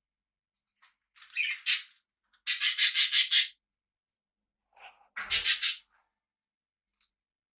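Pet parrots giving harsh, scratchy calls in three bursts. The loudest, in the middle, is a quick run of about six rasping pulses.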